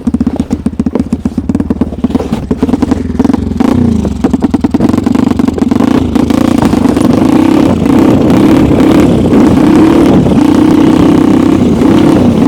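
Small engine of a homemade snowmobile running at low revs with a distinct pulse, then revving up about four seconds in and running louder and steady as it pulls away. The engine is running unevenly, with debris suspected in the carburettor.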